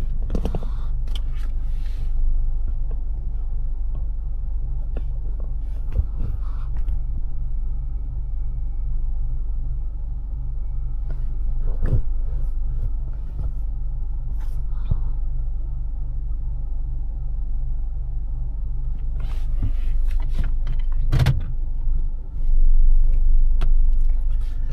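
Car running with a steady low rumble, with scattered light clicks and a sharper knock near the end.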